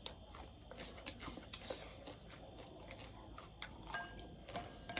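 Close-up eating sounds: irregular crunching, chewing and wet mouth clicks.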